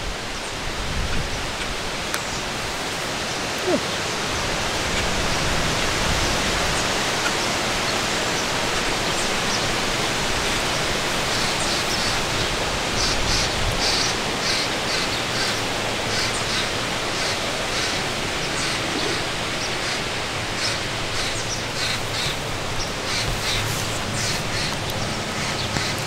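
Wind blowing on the microphone: a steady rushing noise. From about halfway on, short high ticks come through over it.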